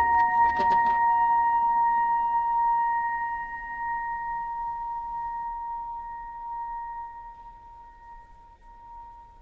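A single high held note with a few faint overtones, steady in pitch and slowly dying away, with a few sharp clicks in the first second. It is the closing note of a contemporary piece for solo clarinet and electronics.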